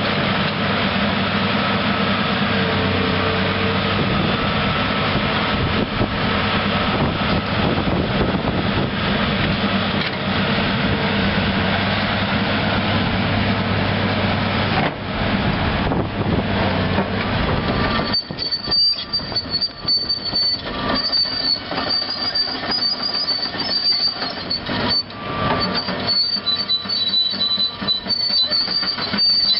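Caterpillar C9 turbo diesel engine of a tracked excavator running steadily. About two-thirds of the way through, the engine note gives way to clanking and an on-and-off high-pitched metallic squeal from the steel tracks and undercarriage as the machine travels.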